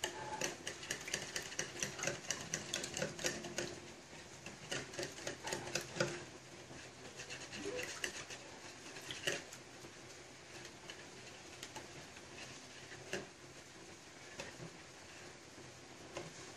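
Metal wire whisk beating a thin egg, oil and water mixture in a bowl: quick, faint clicking and tapping of the wires against the bowl with light sloshing, busy for the first few seconds, then slower with a few single louder taps.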